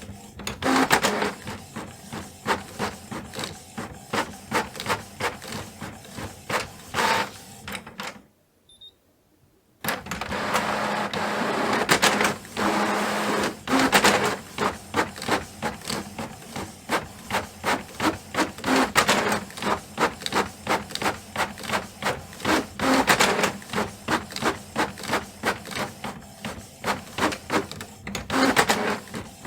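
Canon printer running a print job: a fast, even series of mechanical strokes. The strokes stop for about a second and a half about a third of the way in, then give way to a steadier whir for a few seconds before resuming.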